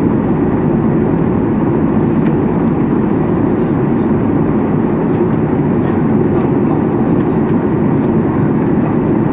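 Steady in-flight cabin noise of a Boeing 737 MAX 8-200 heard from a window seat over the wing: an even, deep rush of airflow and CFM LEAP-1B engine noise at high altitude.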